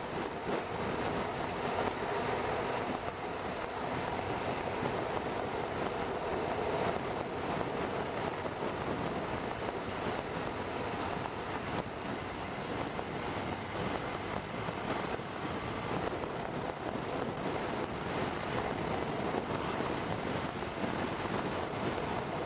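Steady wind rush over a motorcycle-mounted camera microphone at road speed on a gusty day, with the riding noise of the bike under it.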